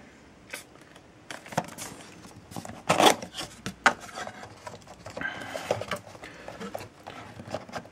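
Cardboard phone box being opened by hand: the inner tray sliding out of its sleeve and flaps being folded back, with rubbing and scraping of cardboard and a scatter of sharp taps, the loudest about three seconds in.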